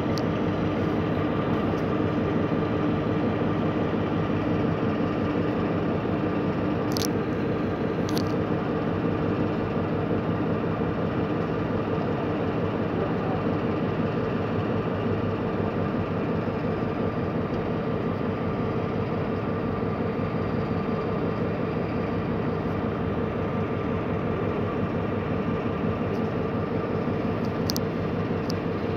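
Diesel engine idling with a steady, unchanging hum, with a couple of faint clicks about seven and eight seconds in.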